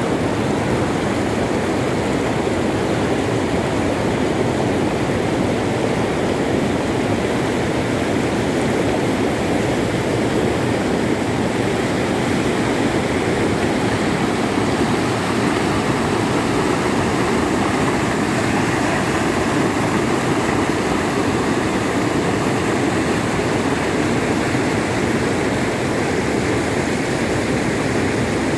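Loud, steady rush of muddy floodwater pouring over a low dam's crest and across a submerged concrete causeway, the river in full flood.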